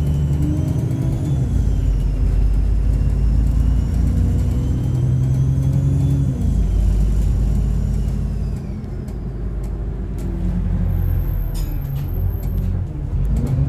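Alexander Dennis Enviro 400 bus with a Voith gearbox heard from inside the bus, its engine pulling under load with a loud turbo whistle that rises and falls with the revs. The engine note drops at the gear changes, about a second and a half in and again about six and a half seconds in. It eases off and quietens midway, then picks up again.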